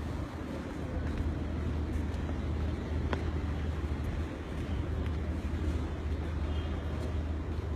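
Steady low outdoor rumble with a faint murmur of a distant crowd, and a single sharp click about three seconds in.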